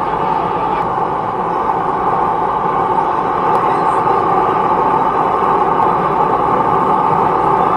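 Forge running: a loud, steady rushing noise with no breaks.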